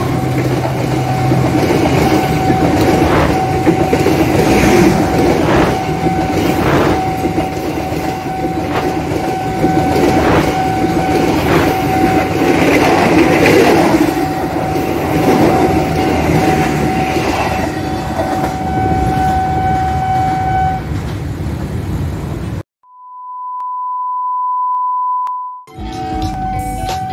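Passenger train coaches rolling past close by, their wheels clacking over the rail joints about once a second, over a steady high tone from the level-crossing alarm. The sound cuts off abruptly about three-quarters of the way through and a lone pure beep-like tone sounds for about three seconds before the crossing alarm tone returns.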